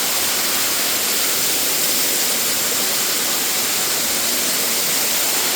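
Waterfall's falling water: a loud, steady rushing hiss with no breaks.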